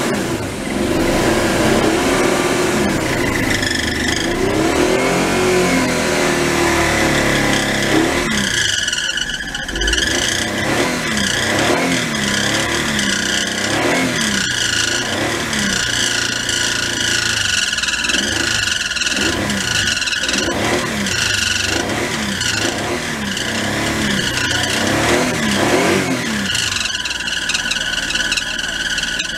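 Mitsubishi Minicab kei truck's 3G83 three-cylinder engine running and being revved up and down over and over, about once a second, with a steady high whine over it. It runs again now that the failed fuel pump has been replaced.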